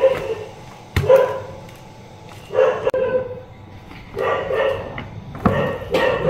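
A dog barking over and over, a bark every second or so, with a sharp click about a second in.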